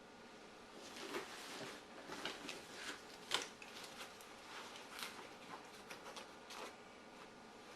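Rummaging through a bag by hand: irregular rustling with scattered clicks and knocks as items are moved and pulled out, the sharpest click about three seconds in.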